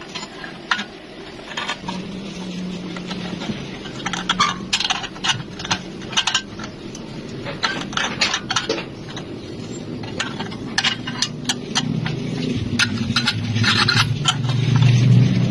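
Irregular metallic clinks and taps, several a second in clusters, over a low hum that grows louder near the end.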